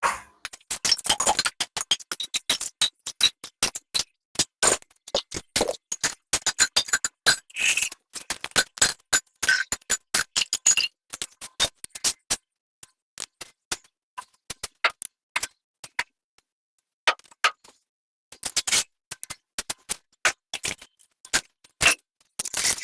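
Rapid, irregular clicking and clinking in uneven clusters, with short silent gaps between them.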